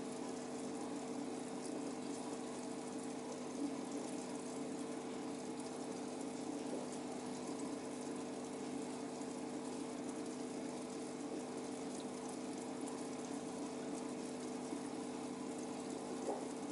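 Aquarium pump humming steadily, with the water moving and bubbling in the tank, and a few faint ticks.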